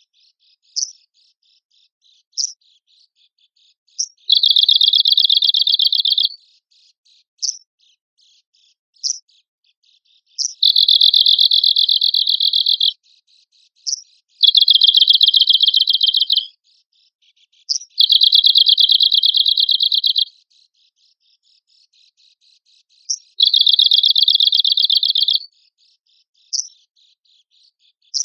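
Arctic warbler singing: five dry, rapid trills of about two seconds each, with single short sharp notes in between.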